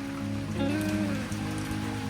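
Steady rain falling on surfaces, under background music.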